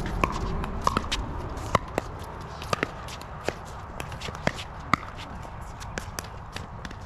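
Pickleball rally: sharp pops of paddles striking a plastic pickleball at irregular intervals, with shoes scuffing on the hard court and fainter pops from other games nearby.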